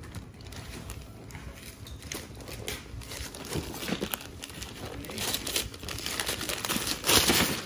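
Wrapping paper crinkling and tearing as a present is unwrapped by hand, in irregular rustles that grow louder, with the loudest rip near the end.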